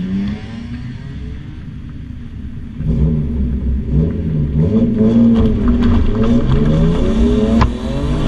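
BMW E36 Compact's 2.5-litre M52 straight-six running, quieter at first, then from about three seconds in revved up and down in repeated blips as the car waits to be waved off and pulls away.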